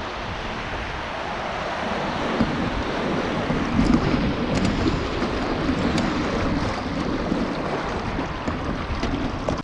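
River rapids: fast current rushing and churning in standing waves around a small boat, with wind buffeting the microphone. The rush grows louder about two seconds in.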